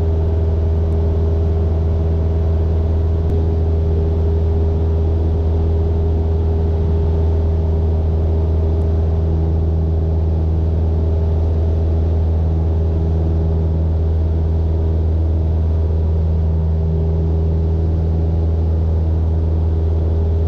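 Maule MXT-7 light aircraft's piston engine and propeller droning steadily in cruise flight, heard inside the cabin as a deep, even hum with a few steady tones above it.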